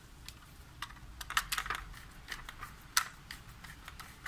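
Light, irregular plastic clicks and taps as a screwdriver works the terminals of a plastic changeover switch and the switch body is handled, with a sharper single click about three seconds in.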